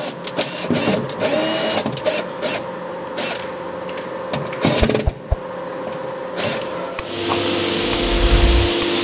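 Cordless drill driving screws into a concealed cabinet hinge: a steady motor whine broken by a series of sharp clicks. About seven seconds in, the sound gives way to a steady hum with hiss.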